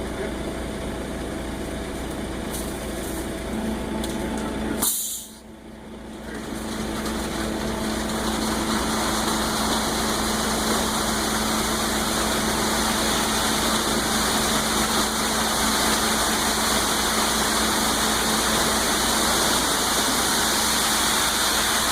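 Concrete mixer truck running during a concrete pour: a steady engine drone, with a broad rushing noise that builds after a brief drop about five seconds in.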